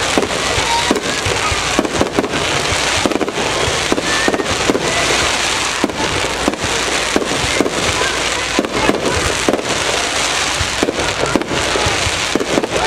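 Fireworks display with aerial shells bursting in quick succession: a dense, unbroken run of sharp bangs and reports.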